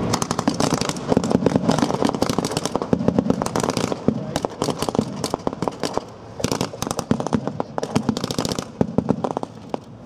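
Massed small-arms fire, rifles and machine guns firing blank rounds in rapid, overlapping volleys. The shots are densest in the first four seconds and thin to scattered shots toward the end.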